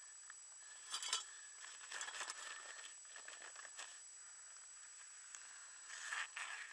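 Touring skis and gear shifting on snow: three short bursts of crunching and scraping, about a second in, around two seconds in and near the end, over a faint steady high whine.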